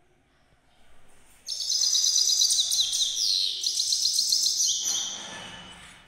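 Caged grey-crowned goldfinch singing: a fast, high twittering song of rapid trills and chattering notes that starts about a second and a half in, runs for about three and a half seconds, then fades near the end.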